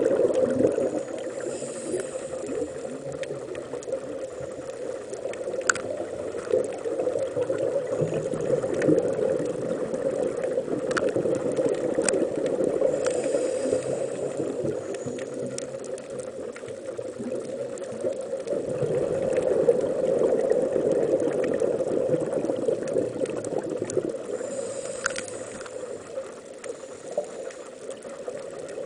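Underwater sound on a scuba dive: a steady, muffled water rush that swells and fades slowly, with a faint hiss of the diver's regulator breathing about every eleven seconds and a few sharp clicks.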